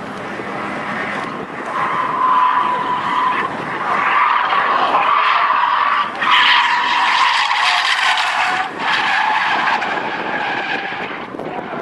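Car drifting, its tyres squealing in a long, wavering screech that grows louder about two seconds in and eases off near the end.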